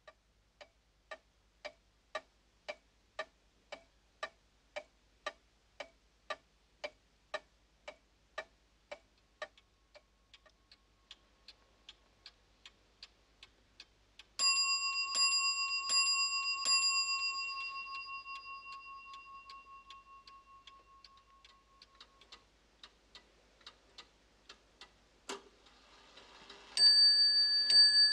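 Antique mantel clocks ticking, first a steady tick about twice a second, then a fainter, quicker tick from another clock. About halfway through, a clock chime strikes about three times and rings out slowly. Near the end a higher-pitched chime begins striking repeatedly.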